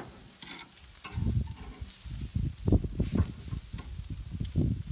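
Pork ribs sizzling on a charcoal grill as they are turned over with metal tongs, with a sharp click of the tongs at the start. From about a second in, low, irregular rumbles are louder than the sizzle.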